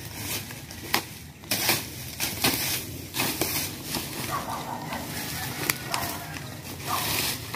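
Machete and long-handled digging tool hacking through dry palm fronds and undergrowth: irregular chopping strikes about every half second to second, with crackling and rustling of dry leaves between them.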